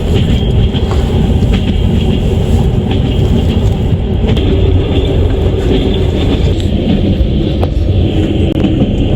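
Train wheels running along the rails: a steady, loud low rumble with a few faint clicks scattered through it.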